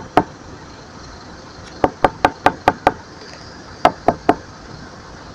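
Quick knuckle raps on a car window. There are three runs of knocks, about four or five a second: one or two at the very start, about six around two seconds in and three more around four seconds in, over a steady background hiss.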